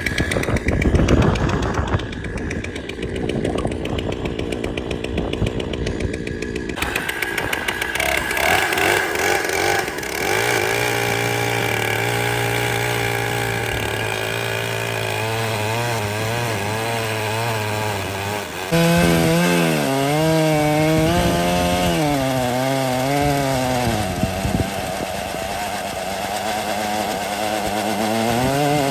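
Two-stroke chainsaw powering an Alaskan chainsaw mill, cutting a slab off a log. The engine runs hard, its pitch rising and falling under the load of the cut.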